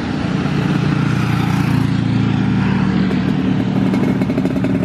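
Jet engines of a landing Boeing 737-800 running loud and steady, with a low droning tone that builds slightly in the first second and then holds.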